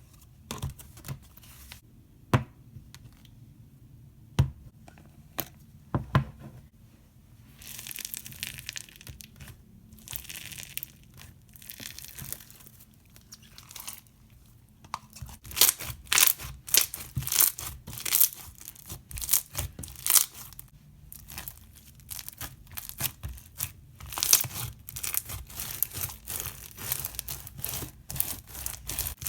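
Slime being played with by hand: a few separate pops and clicks at first, then soft sticky sounds, then dense rapid crackling from about halfway through as it is worked.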